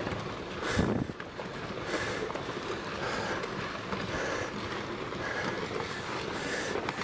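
Rockfall on a volcano's slope: a steady noisy rush of rocks tumbling and clattering down, with a louder crash about a second in.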